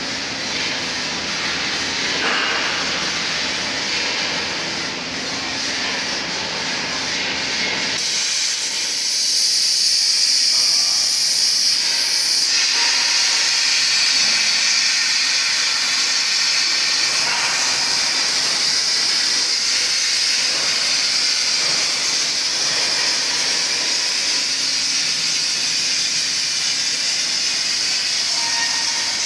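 A beam coping machine's cutting torch cuts through a W14 steel beam, a loud steady hiss that comes on suddenly about eight seconds in. Before it starts there is only mixed machinery noise.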